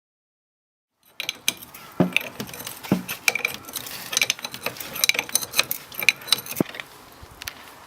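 Spanner unscrewing a tap spindle: a run of sharp metal clicks and clinks, starting about a second in and dying away near the end.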